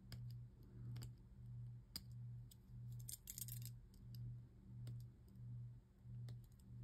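Faint clicks and short scrapes of a blade trimming excess plastic off small Beyblade parts. Underneath is a low hum that pulses about one and a half times a second.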